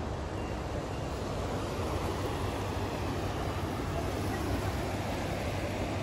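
Steady, even outdoor rushing noise on an open riverbank, with no distinct events.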